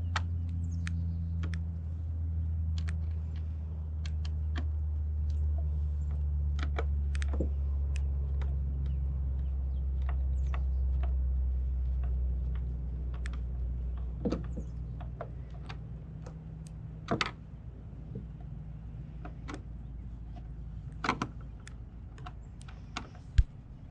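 Irregular small clicks and taps of a plastic transducer mount and its screws being handled and hand-threaded into a kayak hull, with a sharper click near the end. A steady low hum runs underneath and fades about halfway through.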